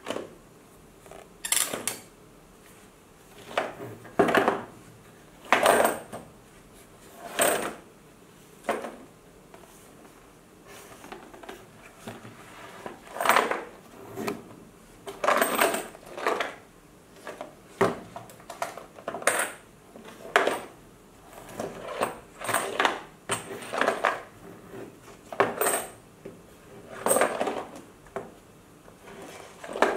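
A coin rolling and sliding along the channels of a cardboard maze box as it is tilted, knocking against the cardboard walls. The sound comes as a string of short rolling rattles, one every second or two.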